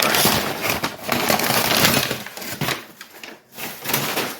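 Packaging being pulled open and off a parcel by hand: a dense crackling rustle for about the first two and a half seconds, then a few shorter rustles.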